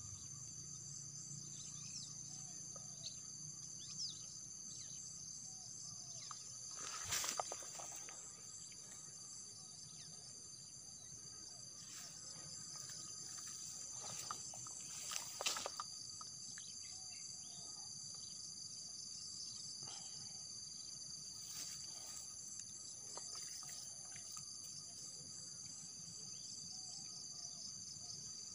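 Steady chorus of insects, shrill and continuous with a fine pulsing texture. Two brief louder noises come through, one about a quarter of the way in and another about halfway.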